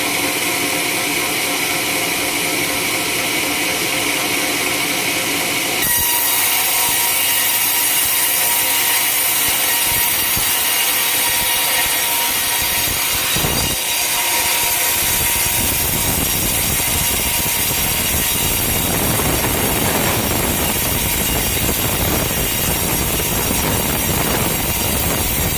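Homemade sawmill cutting a coconut palm log, the saw running steadily. About six seconds in a harsher hiss starts, and from about fifteen seconds the cutting noise grows fuller and heavier.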